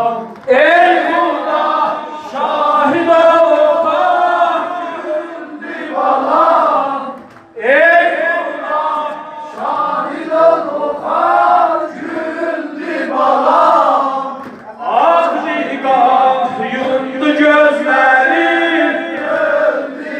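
Male eulogist singing a Shia mourning lament (noha) in Azerbaijani Turkish through a microphone, with a group of men chanting along in phrases. This is the sung accompaniment to ritual chest-beating (sineh zani).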